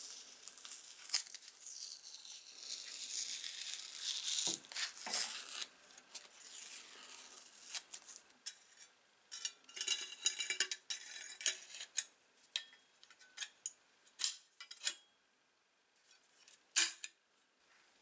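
Paper masking tape being peeled and torn off the axe multi-tool's steel head, with crinkling, for the first several seconds. Then the steel parts of the tool clink and tap against a steel plate as it is handled, with a last sharp tap near the end.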